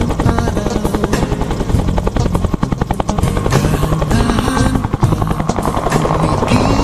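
Bell UH-1 Huey helicopter's two-blade main rotor beating in a rapid, even chop, with the turbine running, as it lifts off. Music is laid over it.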